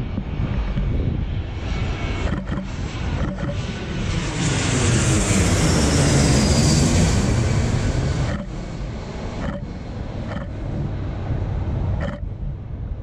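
Jet airliner passing low overhead: the engine noise swells to a peak about six seconds in, with a sweeping rise and fall in pitch, and drops away sharply near eight seconds. A DSLR shutter clicks a few times before and after, over a low wind rumble on the microphone.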